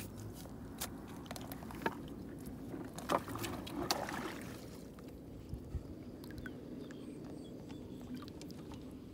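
Fish thrashing in shallow muddy water: scattered splashes and sloshing for the first four seconds or so, then a quieter steady background.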